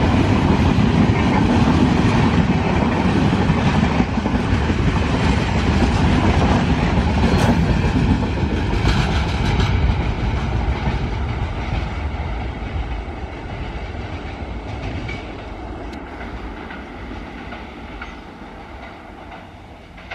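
Rajdhani Express coaches running past at speed, their wheels rolling over the track in a loud, steady rumble. From about ten seconds in the sound fades away as the end of the train draws off.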